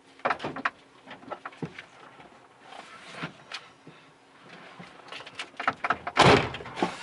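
Truck cab door being opened and the driver climbing in, with a string of clicks and knocks, then a loud thud about six seconds in as the door shuts.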